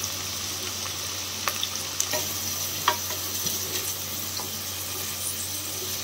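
Sliced onions sizzling as they fry in hot coconut oil and ghee in a pressure cooker, a steady hiss, stirred with a few sharp clinks of the utensil against the pot.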